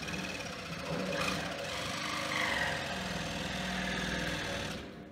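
Power saw running as it cuts back a wooden cross brace, for about five seconds, then stopping near the end.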